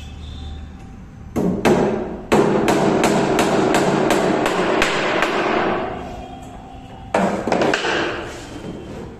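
Hammer nailing the metal clips of zig-zag sofa springs to a wooden sofa frame rail. Two blows, then a quick run of blows at about three a second for some four seconds, then three more near the end.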